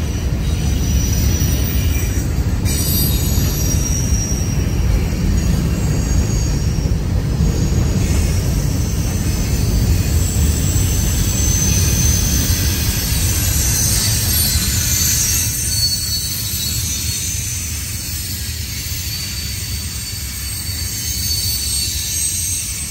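Freight train cars rolling past: a steady low rumble of wheels on rail, with thin, high-pitched wheel squeal coming and going, loudest a little past halfway.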